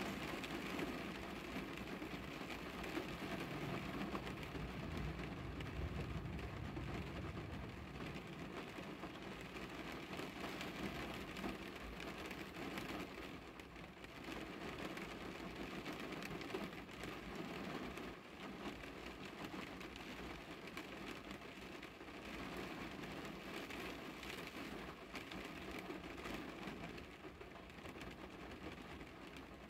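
Rain falling on a car's windows and body, heard from inside the cabin as a steady, even hiss. A low rumble runs underneath, stronger in the first several seconds.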